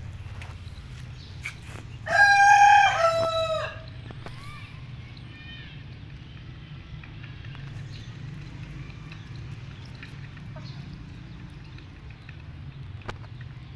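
A rooster crows once, a loud cock-a-doodle-doo of nearly two seconds starting about two seconds in and stepping down to a lower note at the end. Hens cluck softly around it.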